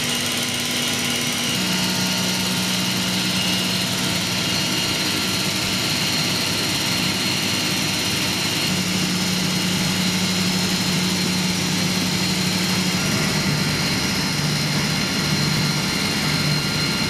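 Boeing 747-8F nose cargo door opening, driven by its small electric motor and two screw jacks: a steady mechanical hum with a low tone that shifts pitch a few times, over steady aircraft apron machinery noise.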